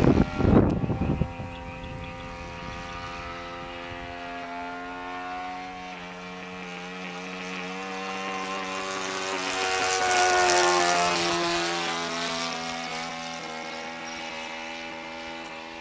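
Saito 14 cc four-stroke engine of an RC SE.5A biplane model running steadily in flight, a constant buzzing drone. It grows louder about ten seconds in as the plane passes nearest, then drops in pitch as it flies away. Wind buffets the microphone during the first second.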